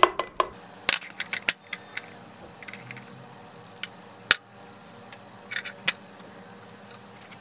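Scattered light clicks and clinks of small glass dropper bottles and a glass beaker being handled on a tabletop. The sharpest single tap comes about four seconds in.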